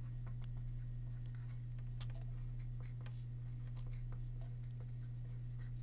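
Pen writing on paper: a run of short scratchy strokes as words are written out, over a steady low hum.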